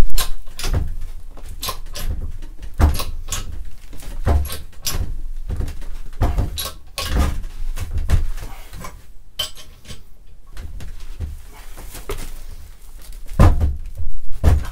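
A 10-tonne hydraulic bottle jack in a homemade press is pumped by hand, squeezing a lump of lead. Its pump lever clicks and knocks with each stroke, roughly once a second at an uneven pace, and each stroke carries a dull thump. The strongest strokes come at the start and near the end.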